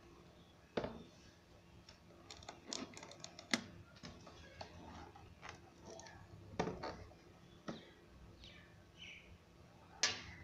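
Plastic wall clock being handled and turned over, giving irregular light clicks and knocks, a quick run of them a few seconds in and a sharper knock near the end.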